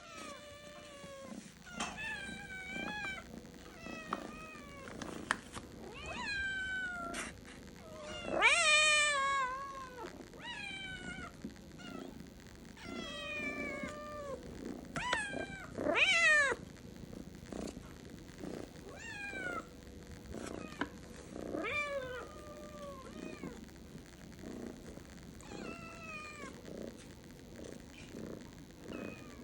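Domestic cats meowing over and over, about one call every second or two, each call rising and then falling in pitch. Two calls, about eight and sixteen seconds in, are louder than the rest.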